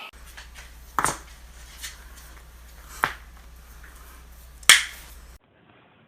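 Three sharp joint cracks from a neck or back adjustment, about a second apart at first and then a gap of nearly two seconds, the last the loudest, over a low steady hum.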